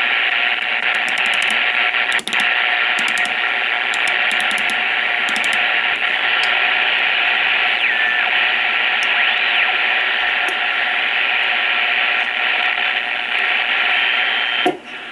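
Pace 1000B CB radio's speaker hissing with static while receiving on sideband, more static than the owner thinks sideband should have, a sign the radio still has a fault. The hiss is steady, with a brief dropout about two seconds in and a faint whistle gliding up and down about eight seconds in, and it cuts off just before the end.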